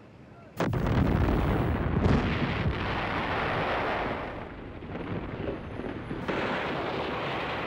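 Battle sounds: a sudden loud blast about half a second in, then continuous gunfire and explosion noise with a few sharper cracks. It eases off around the middle and rises again near the end.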